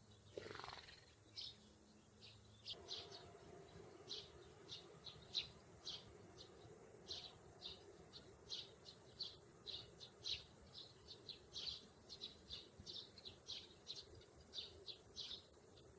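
Sparrows chirping, short high chirps several times a second. A brief falling whistle near the start, and a faint steady hum underneath from about three seconds in.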